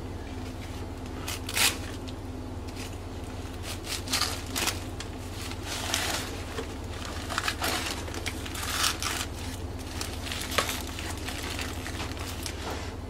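Crumpled newspaper packing paper rustling and crinkling in irregular bursts as it is handled and pulled away from a potted plant, with the sharpest crackle about one and a half seconds in. A steady low hum runs underneath.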